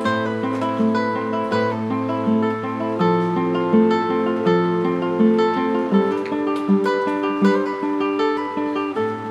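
Background music: acoustic guitar playing plucked chords over a steady low note, the chords changing every second or so.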